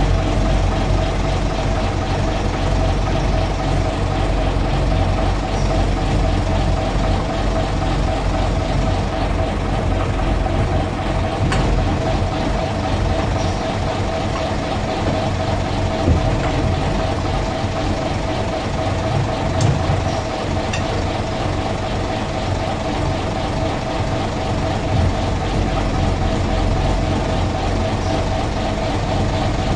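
Guy Arab LUF bus's underfloor diesel engine running steadily at low revs, heard from inside the cab while the bus is slowly manoeuvred.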